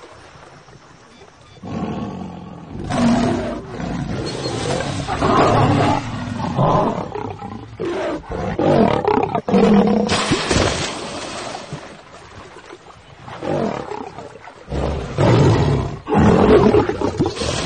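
Male lion roaring at a crocodile in a series of loud bursts with short gaps between them.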